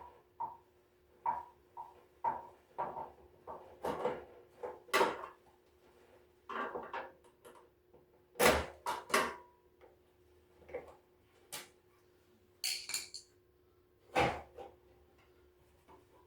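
Scattered clicks, knocks and light rattles of hands handling and taking apart the plastic and metal housing of an electric stove heater, the loudest knocks a little past halfway, with a faint steady hum underneath.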